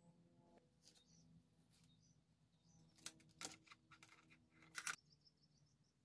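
Near silence: a faint low hum with a few light clicks and taps about halfway through and near the end.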